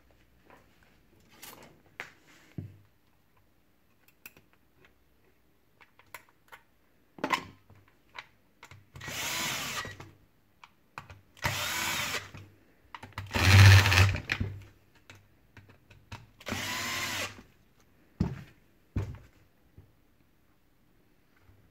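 Cordless drill-driver running in four short bursts of about a second each, the third the loudest, backing out the screws of a petrol chainsaw's top cover. Light clicks and knocks of parts and tools being handled fall between the bursts.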